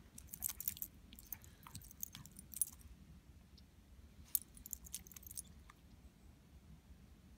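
Siberian husky mouthing and nosing into snow: faint, scattered crisp crunches and clicks, in one bunch over the first few seconds and another about four seconds in.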